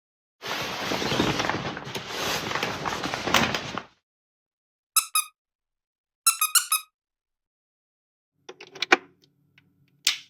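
Curtains being drawn, a rustling, sliding noise lasting about three seconds. Then a rubber squeaky toy is squeezed: two squeaks, and a little later a quick run of four or so. Near the end a UK plug is pushed into a wall socket, with scraping clicks and a sharp click.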